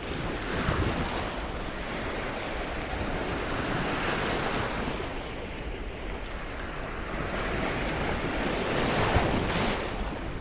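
A steady rush of wind and sea surf, swelling and easing every few seconds, with wind buffeting the microphone.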